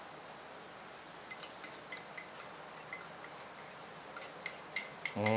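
Metal spoon clinking and scraping against a small ceramic bowl as the meat paste is scraped out, a run of light clinks at an uneven pace starting about a second in and growing louder near the end.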